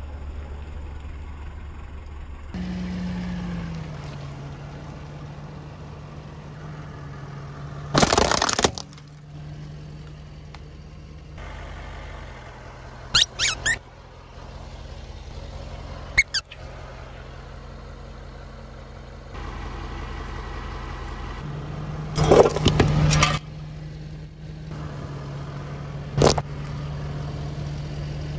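A car's engine running at idle as the car creeps forward, with about five sudden loud cracks and pops as objects are crushed under a tyre, one of them a quick run of three cracks about halfway through.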